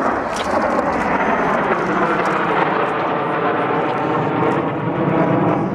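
Four Mitsubishi T-2 jet trainers flying past in close formation, their twin turbofan engines making loud, steady jet noise with a whine laid over it.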